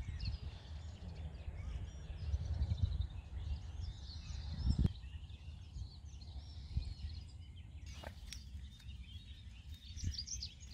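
Small birds chirping over a steady low rumble of wind on the microphone, with a dull thump about five seconds in.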